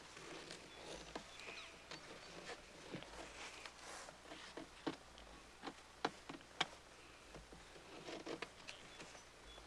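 Knife point scraping birch bark on a canoe hull, etching a design by scraping away the dark layer: faint, irregular short scratches and small clicks, with a few sharper ticks about halfway through.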